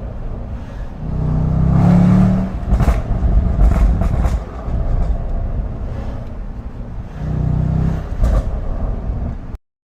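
Range Rover Sport SVR's supercharged V8 exhaust, revved twice from idle, with sharp pops and crackles on the overrun after each rev from a Stage 1 tune's crackle map. The sound cuts off suddenly near the end.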